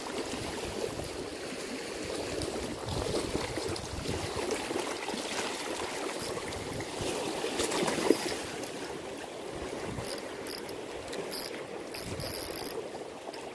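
Choppy, current-driven lake water rushing and lapping close to the microphone, steady throughout, with one brief louder thump about eight seconds in.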